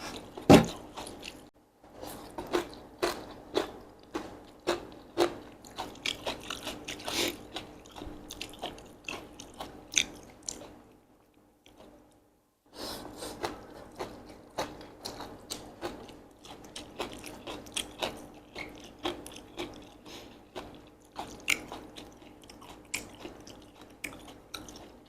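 Close-up mouth sounds of a person eating Korean japchae glass noodles with vegetables: chewing with many short wet smacks and clicks, pausing for about a second and a half near the middle.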